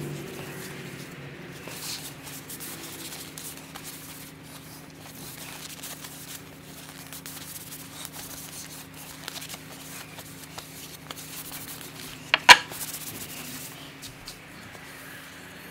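A wooden axe handle being sanded: steady rubbing and scratching over a low, even hum. One sharp knock about twelve seconds in.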